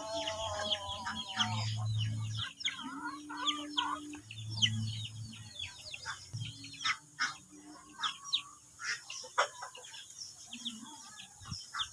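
Chickens clucking, with many short, quick calls throughout and a longer wavering call at the start.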